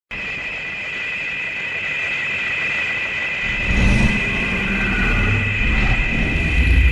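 Kaiju-film sound effect: a steady, high two-note whine over a hiss, joined about halfway through by a deep rumble.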